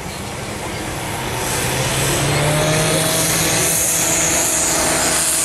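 Compact diesel pulling tractor's engine revving up at the start of a pull. The revs rise over the first couple of seconds and are then held high and steady, with a hiss growing in over the engine.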